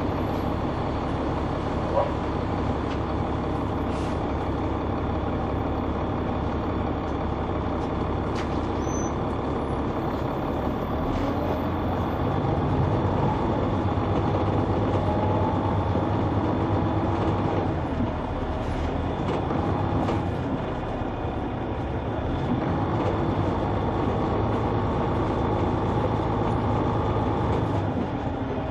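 Caterpillar C9 inline-six diesel of a 2004 Neoplan AN459 articulated transit bus, heard on board as the bus drives. The engine note climbs, dips about two-thirds of the way through, then climbs again as the bus speeds up.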